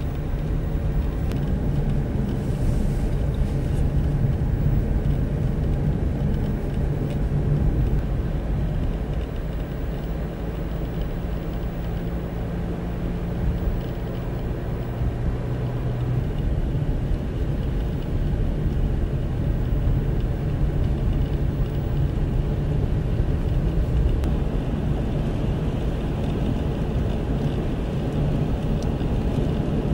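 Steady vehicle road noise heard from inside a moving car: a continuous low rumble of tyres and engine with a steady drone running through it.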